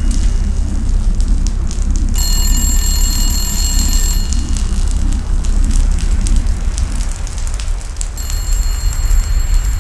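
Burning newspaper: fire with a low roar and scattered crackles. A high, steady ringing tone sounds over it, cuts out briefly about two seconds in, stops about four seconds in and comes back near the end.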